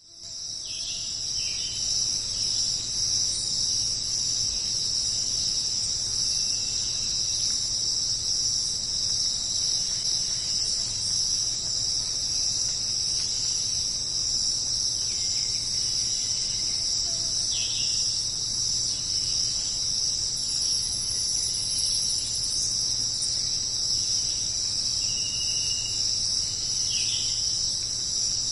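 Dense, steady chorus of tropical rainforest insects, a high shrill buzz that fades in over the first couple of seconds. A few brief falling calls sound over it now and then.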